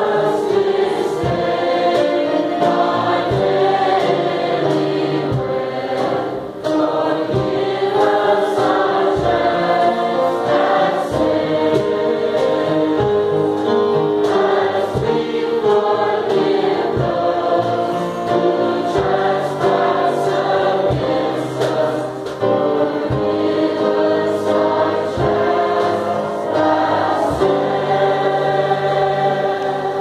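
Student choir singing a gospel song, with a steady beat under the voices.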